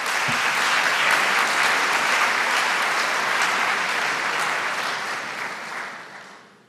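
A large lecture-hall audience applauding steadily, then dying away over the last couple of seconds.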